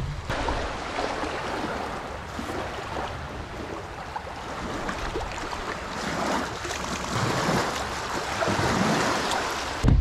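Small waves washing and trickling over rocks at the water's edge: a steady rushing splash with little crackles in it, swelling a little past the middle.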